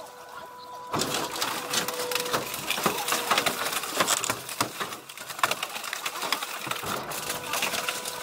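Hydraulic car press running with a steady hum, and from about a second in, dense cracking, creaking and clicking as the press lid bears down on a scrap car's body.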